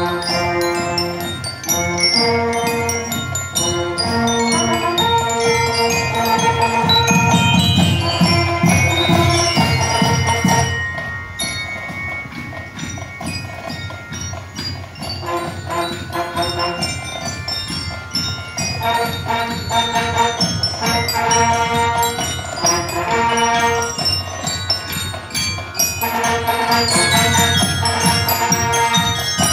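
Marching band playing a tune, with bell lyres ringing out the melody over brass and drums. It drops quieter about halfway through, then builds again near the end.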